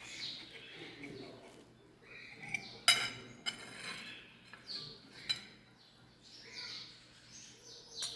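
Birds chirping in the background, with a few sharp clinks of tableware. The loudest clink comes about three seconds in.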